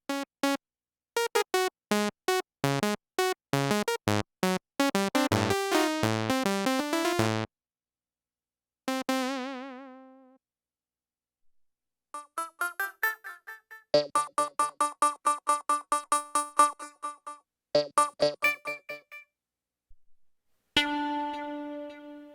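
Kurzweil K2VX synthesizer presets being played: short detached notes that thicken into a quick run of chords, then a single held note with vibrato. After a pause come rapid repeated notes, and near the end a held note.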